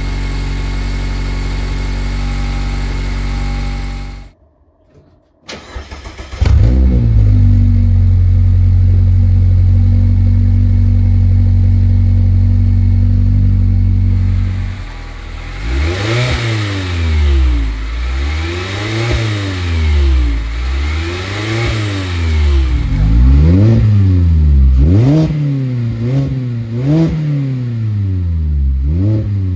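Mazda MX-5 engine idling steadily through its original exhaust. After a short break it is cold-started through a new stainless-steel exhaust: the starter cranks briefly, the engine catches and holds a loud, steady fast idle. From about halfway through it is revved again and again, a quick rev about every second and a half, each one rising and falling in pitch.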